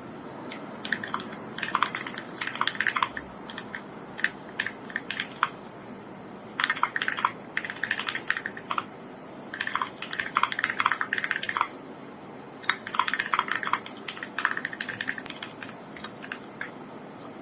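Akko ACR Pro Alice Plus mechanical keyboard with TTC Gold Pink linear switches being typed on in runs of rapid keystrokes, each lasting one to three seconds with brief pauses between.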